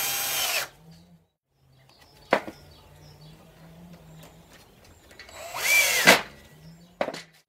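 Cordless drill-driver driving small wood screws into wooden shelf boards. A motor run stops just under a second in and a sharp click follows about two seconds in. A second run rises in pitch around five to six seconds and stops abruptly, with another click near the end.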